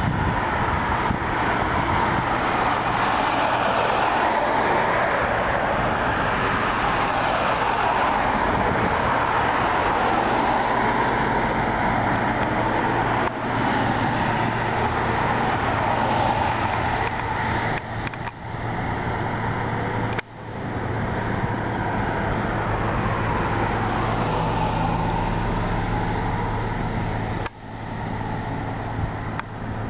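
Road traffic on a busy street: a steady wash of car tyre and engine noise, swelling and fading as vehicles pass, over a low engine hum. The sound drops out abruptly for a moment a few times in the second half.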